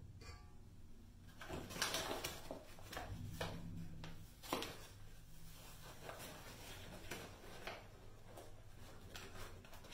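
Paper flour bag rustling and crinkling as it is handled and flour is scooped out, with a few sharp knocks and taps among the rustling.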